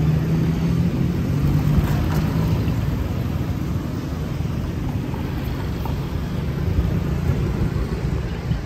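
A motor engine running steadily with a low hum, strongest in the first couple of seconds and then easing off.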